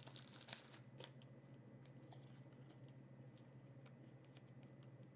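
Near silence with faint, scattered small ticks and rustles of a trading card being slid into a plastic protective sleeve and handled, over a low steady hum.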